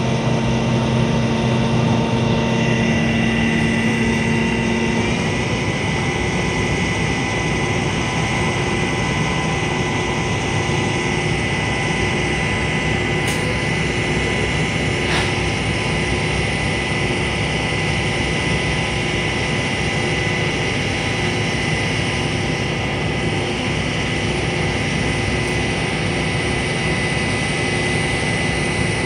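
Telescopic crane's engine and hydraulics running steadily as the boom extends upward, a constant mechanical drone with a thin high whine. A lower hum drops out about five seconds in, and the note shifts slightly.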